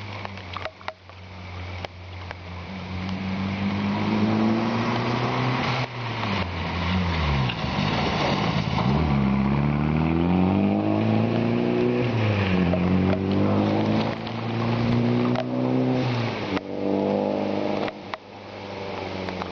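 Rally car engine revving hard as it approaches and passes, its pitch climbing and then dropping sharply at each gear change, four times. A steady hiss of wet tyres and rain runs underneath.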